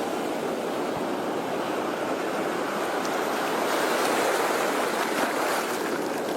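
Sea surf washing on a shore: a steady rushing wash of waves that swells a little about four seconds in.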